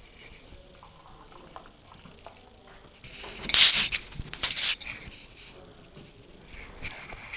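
A hand rubbing and fumbling against a GoPro camera's housing: a short run of loud scraping rustles about halfway through, over a quiet background.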